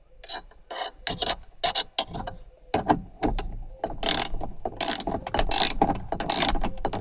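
Ratchet wrench with a 14 socket clicking as it tightens a seatbelt anchor bolt. The clicks are sparse and irregular at first, then come in quicker, denser runs from about four seconds in.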